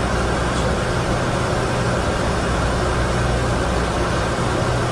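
Steady flight-deck noise of a Boeing 747-200 in the climb: a constant rush of air and engine noise with a low hum underneath, unchanging throughout.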